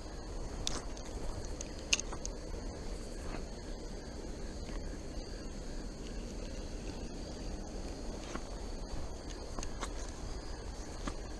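Steady high-pitched insect chorus over a low, even rushing noise, with scattered small clicks and taps. The loudest click comes about two seconds in.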